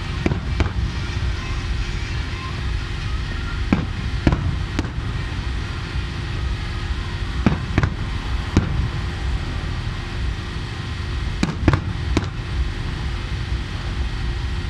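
Aerial fireworks shells bursting: about a dozen sharp bangs in small clusters a few seconds apart, over a steady low rumble.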